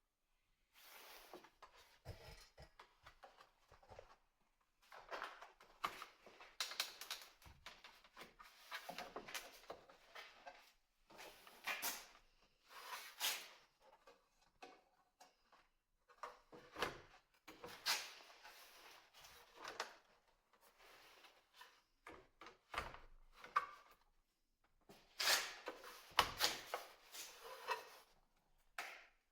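Irregular handling noises: clusters of scrapes, rustles and sharp clicks or knocks with short pauses between them, like parts being handled and fitted by hand.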